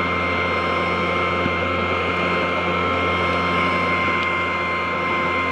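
Electric motor of a child's ride-on toy police motorbike running steadily: a low hum with a thin, constant high whine.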